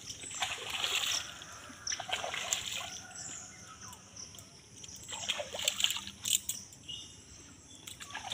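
Pond water splashing in irregular bursts, with quieter stretches between, as hands rinse cut pieces of fish in it.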